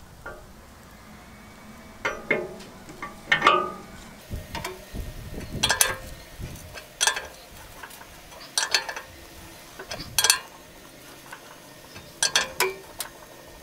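Socket wrench tightening the large nut on a Bush Hog 305 rotary cutter's stump jumper, giving short bunches of metal clicks and clinks every second or two. One clank about three and a half seconds in rings briefly.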